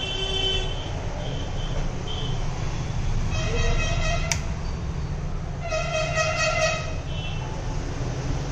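Two vehicle horn honks, each held about a second, over a steady low traffic rumble, with a sharp click between them.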